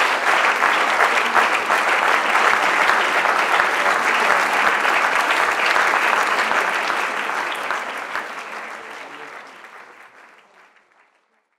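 Audience applauding: dense, steady clapping of many hands that fades away over the last few seconds.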